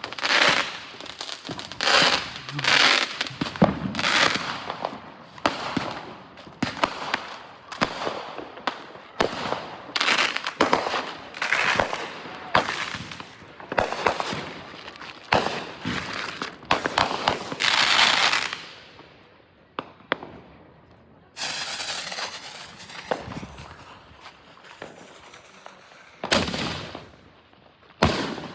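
Fireworks going off: a rapid series of loud bangs with crackling tails, about one a second, then after a short lull two more loud bangs near the end.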